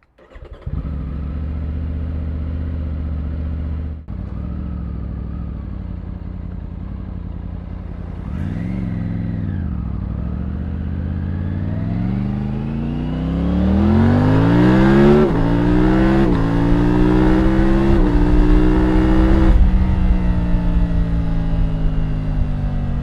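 Triumph Tiger 900's three-cylinder engine idling, one short blip of the throttle, then pulling away with rising revs broken by three upshifts before the rider eases off the throttle.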